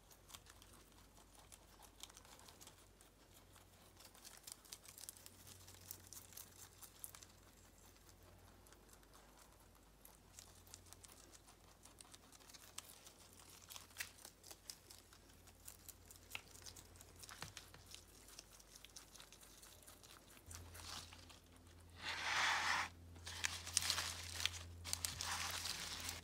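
A guinea pig and a rabbit eating spinach leaves: faint, steady crunching and tearing of the leaves. Near the end come louder bursts of rustling and crinkling, the spinach being stirred in the plastic colander.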